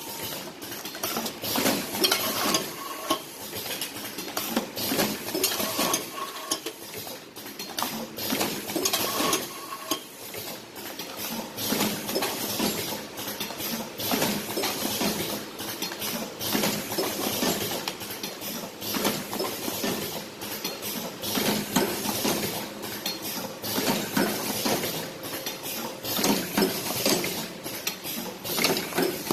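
Automatic cartoning machine running, its mechanisms making a busy, irregular metallic clattering and clicking.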